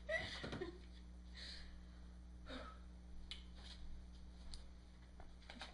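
A quiet room: a person's breaths and short exhales, the first trailing off from laughter in the opening second, then a few faint clicks, over a steady low electrical hum.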